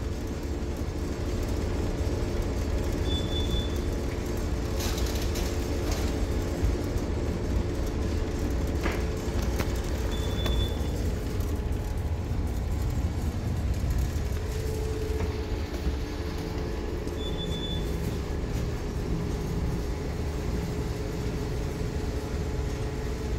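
Steady low rumble and hum of a tanker's engine and machinery under way, with a short high electronic beep about every seven seconds and a few faint knocks.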